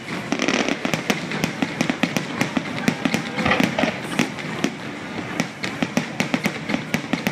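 Fireworks display: aerial shells bursting, with many sharp pops and crackles following one another in quick, irregular succession.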